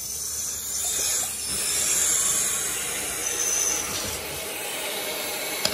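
Water pouring from a Roman tub spout into the tub, a steady splashing hiss, as the valve with its freshly replaced Delta cartridge is opened for a leak test. A short sharp click near the end.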